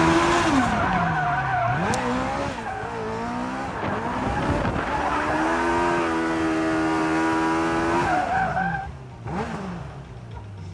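Car engine revving hard, its pitch climbing and falling back several times, with tyres squealing as the car slides and spins on tarmac, heard from inside the car. The noise eases off about nine seconds in.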